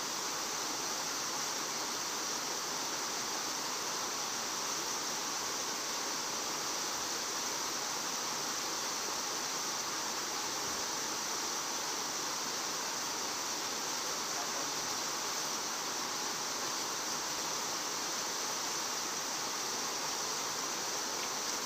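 Steady, even outdoor background hiss with no distinct events, strongest in a high band.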